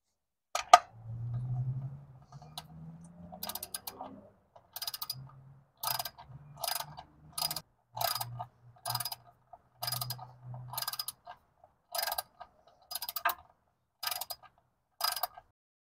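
Socket ratchet clicking in short back-strokes, roughly one a second, as the oil drain plug is screwed into the pan by hand until snug, ready for torquing. A low hum runs underneath for the first two-thirds.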